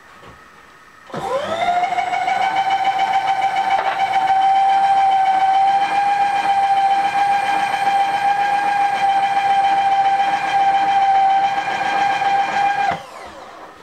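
Milling machine table power feed traversing the table: a steady whine that spins up about a second in, holds one pitch, and winds down shortly before the end.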